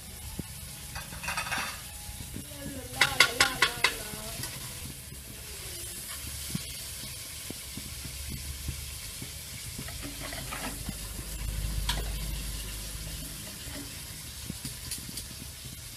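A metal spoon clinks against an aluminium pot in a quick run of about six ringing strikes about three seconds in, with a few fainter taps later. Under it runs a steady hiss from the pot of liquid heating on a gas burner.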